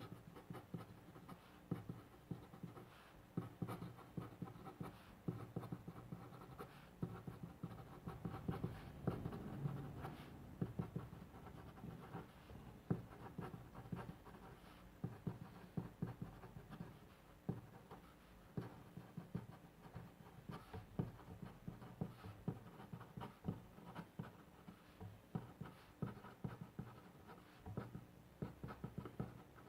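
Pen scratching on paper in quick, irregular short strokes of handwriting.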